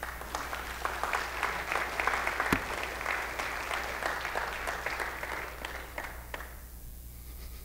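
Congregation applauding, starting suddenly and dying away about six to seven seconds in.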